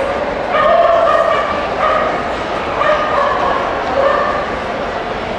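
A dog whining in a series of short, high-pitched drawn-out notes, about half a dozen over some four seconds, over the steady murmur of a crowded hall.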